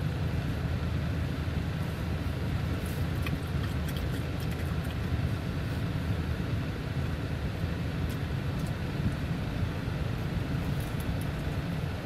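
Steady low rumble of a car idling, heard from inside the cabin, with a few faint clicks of chewing.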